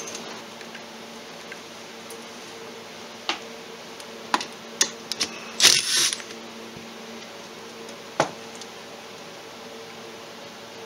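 A few sharp metallic clicks of tools and parts being handled on an engine crankcase, then, about halfway through, a half-second burst from a cordless power driver spinning a bolt out of the case, with one more click a couple of seconds later. A steady low hum runs underneath.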